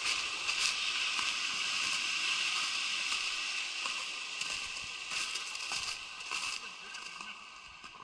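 Fast river water rushing over a rapid and swirling past ice floes: a steady hiss with a few short clicks, growing quieter over the last couple of seconds.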